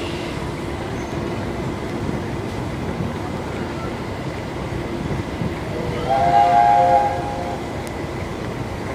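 Steady running noise of a passenger train rolling slowly. About six seconds in, a train's warning signal sounds once for about a second and a half, several notes together.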